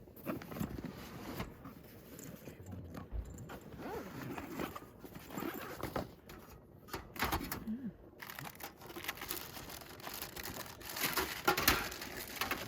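Rustling and small knocks of gear being handled, with a louder run of clicks and clatter near the end.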